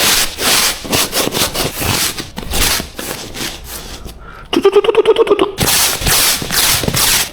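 Quick, irregular strokes on a fabric sofa as it is cleaned, each a short scratchy swish. About four and a half seconds in, a buzzing hum sounds for about a second.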